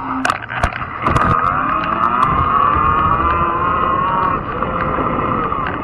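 Fat-tire e-bike ride noise: road rumble with scattered rattling clicks, and a motor whine that rises slightly, then falls away about four seconds in.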